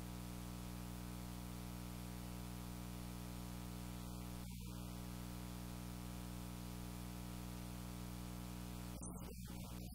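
Steady electrical hum with a faint hiss, unchanging throughout; the hiss cuts out briefly about halfway through and again near the end.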